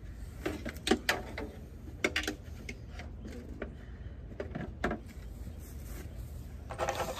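Scattered plastic clicks and knocks of a pickup truck's headlight assembly being handled and pushed into its mounting bracket, about ten irregular sharp taps, with a brief rustle near the end, over a steady low hum.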